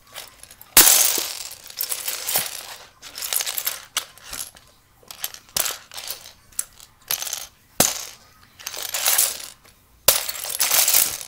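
Loose plastic Lego bricks clattering and rattling as a hand rummages through them in a plastic storage bin, loudest about a second in and again near the end.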